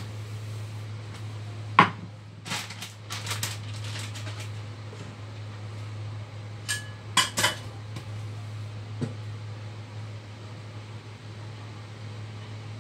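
A metal frying pan and kitchen utensils clattering and clinking against a countertop as the pan is handled and set down. The loudest clank comes about two seconds in, followed by a quick run of clinks and another cluster around seven seconds in, all over a steady low hum.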